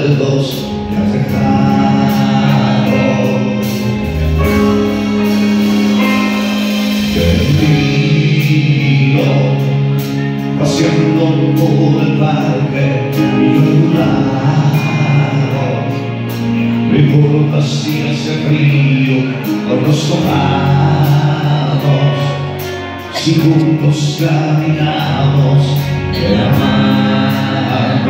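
Live band music: a man singing into a microphone over electric bass guitar, drum kit and electronic keyboards, with a steady beat.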